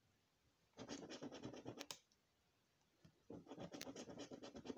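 A coin scratching the coating off a paper scratchcard in quick back-and-forth strokes: one burst about a second in, a pause, then a second burst.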